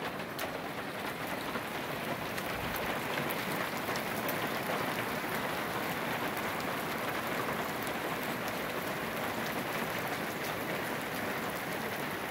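Graupel (soft hail) falling in a steady shower: a dense, even hiss of pellets pattering down, with scattered sharp ticks of single pellets striking.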